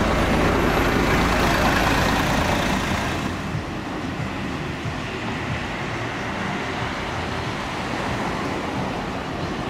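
Articulated city bus pulling past close by, loud, for about three seconds; then, at a sudden change, quieter steady road traffic noise from passing cars.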